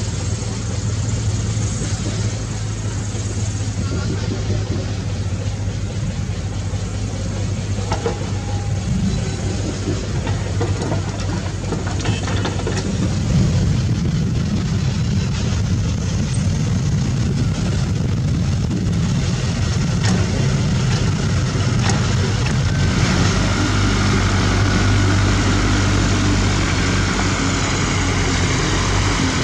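Diesel engines of heavy construction machinery, an excavator and a dump truck, running in a steady low drone, with a few brief knocks. The drone grows louder and fuller about halfway through.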